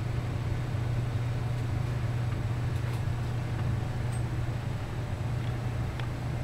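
Steady low hum with an even hiss over it, and a few faint clicks about halfway through and near the end.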